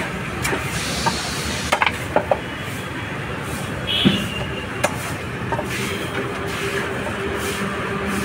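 Irregular sharp knocks of a wooden stick striking the back of a large knife as it is driven through a fish on a cutting board, over a steady background of market noise. The strongest knock comes about four seconds in.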